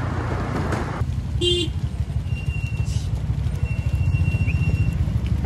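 Rented scooter on the move: a steady low engine and road rumble with a fast pulsing, and wind hiss on the microphone that drops away about a second in. A short beep sounds about one and a half seconds in.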